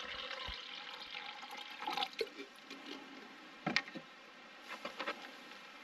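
Water splashing and dripping as a soapy face is rinsed by hand. A soft wash of water fades over the first couple of seconds, followed by a few short splashes.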